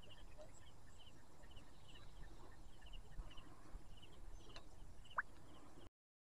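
Faint, repeated high chirps in quick pairs, about two a second, over a low rumble, with one brief rising call near the end; the sound then cuts out to silence.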